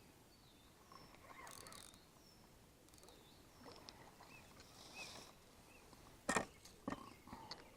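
Quiet lakeside air with faint, scattered bird chirps. About six seconds in there is a short sharp splash-like knock, followed by a few smaller clicks.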